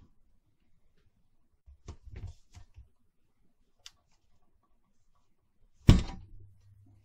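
The metal chassis and main circuit board of a Behringer mixer being handled as the board is put back in: light knocking and clattering about two seconds in, then one loud thunk near the end as the chassis is set down on the bench.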